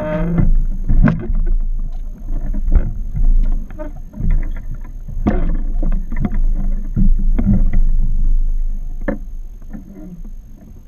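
Small fishing skiff on open water: a steady low rumble with irregular knocks and thumps throughout, and a short pitched sound right at the start.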